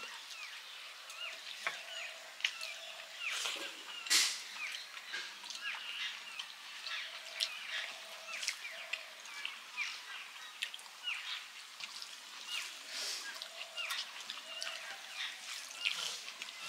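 Eating by hand from steel plates: fingers mixing rice and curry, with small clicks and chewing. Birds chirp again and again, and a faint short call repeats in twos and threes.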